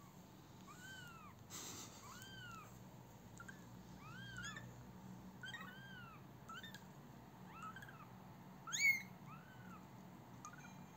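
Six-day-old kittens mewing: thin, high mews, each rising then falling in pitch, about one a second, with a louder rising cry about nine seconds in.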